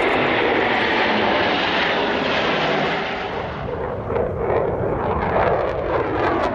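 Jet engine roar from a formation flypast of Red Arrows BAE Hawks with fighter jets. The roar dips about three and a half seconds in, and a rougher, crackly rumble follows.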